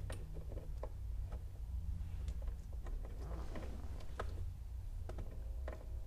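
Scattered small clicks and knocks from the ignition lock cylinder and steering-column parts being worked into place by hand, with a brief scraping rustle midway, over a steady low hum.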